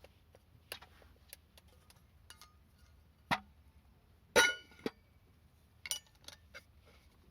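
Scattered light clicks and knocks, with a louder ringing metallic clink about four seconds in, from handling around a mont-bell folding fire pit.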